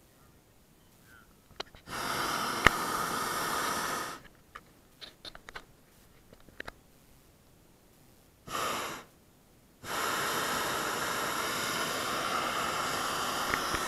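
Hot air balloon's propane burner firing in three blasts with a rushing hiss: one of about two seconds, a short half-second burst, then a longer one of about four seconds. A few small clicks come in the quiet gaps between.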